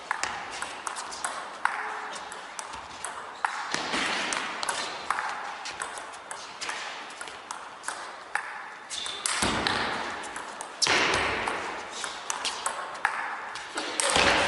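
Celluloid-type table tennis ball clicking off rubber bats and the table in one long rally between an attacker and a chopping defender, a string of sharp pings at an uneven pace.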